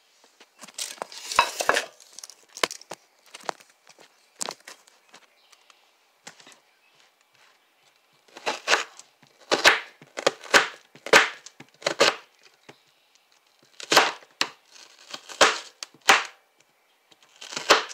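Kitchen knife slicing through an onion onto a cutting board: sharp cuts and crunches in groups, with a quiet pause about five to eight seconds in and a quick run of cuts about twice a second after it.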